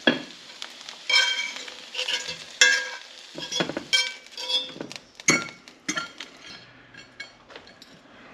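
A metal fork scrapes and clinks repeatedly against a cast-iron skillet as seared octopus pieces are lifted out, each strike ringing briefly, while hot oil sizzles in the pan.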